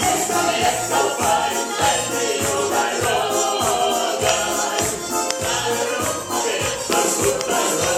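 A pop song playing: singing over a backing with a steady beat.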